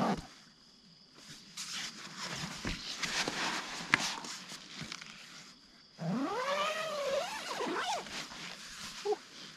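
Rustling and light knocks from a camping hammock as someone climbs in and settles, then, about six seconds in, a cow's long moo that rises and then falls in pitch.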